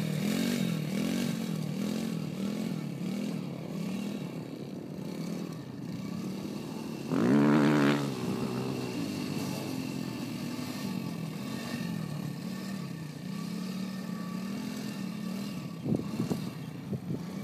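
Kazuma Falcon 90cc youth quad's small single-cylinder four-stroke engine running at part throttle, its pitch rising and falling about once a second as the rider throttles around. A brief louder burst comes about seven seconds in, and a few short knocks near the end.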